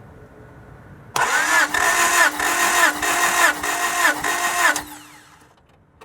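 1991 Honda Prelude Si's B21A1 four-cylinder engine cranked over by its starter motor for about three and a half seconds, in even pulses about two a second, without firing. The starter cuts off and winds down with a fading whine. The cranking is for a compression test, and this cylinder reads about 180 on the gauge.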